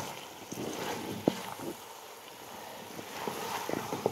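Wooden spoon stirring and scraping chunks of beef and chopped greens in an aluminium pot, over a steady frying hiss. The spoon knocks sharply against the pot about a second in and again near the end.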